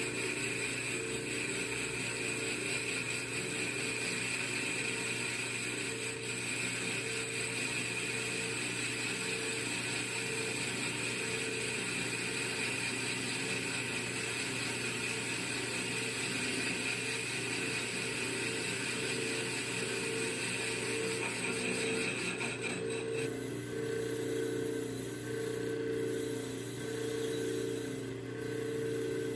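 Small electric motor, a repurposed blender motor, running steadily with a high whine; about 23 seconds in the high whine drops away while a lower hum carries on.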